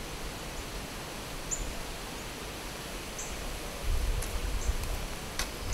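Bee smoker being puffed at a package of bees: irregular low puffs starting about four seconds in, over a steady outdoor background with a few short high bird chirps, and a sharp click near the end.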